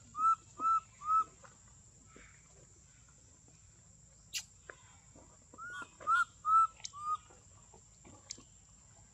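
Baby macaque crying for its mother with short, high, whistle-like coo calls, each rising then falling. They come in two runs of about four calls, roughly two a second, one run at the start and one about six seconds in. A single sharp click sounds midway.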